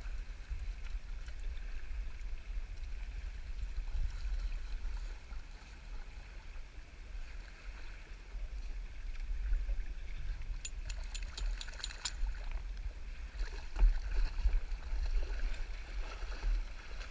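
Shallow river water running around a drifting kayak: a steady hiss over a low rumble. About ten seconds in comes a quick run of sharp clicks lasting about a second and a half.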